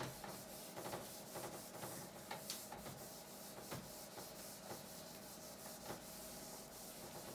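Whiteboard eraser rubbing across a dry-erase board, a continuous scrubbing made of many short back-and-forth strokes as the board is wiped clean.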